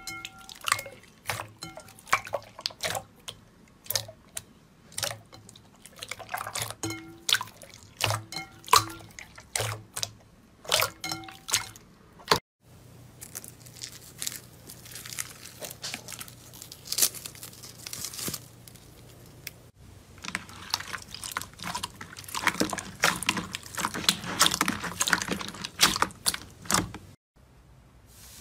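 Hands squeezing clear slime, with sharp wet pops and clicks as air pockets burst. About twelve seconds in this gives way to a dense, fine crunching and crackling of foam beads mixed into slime, rubbed and pressed under the fingers.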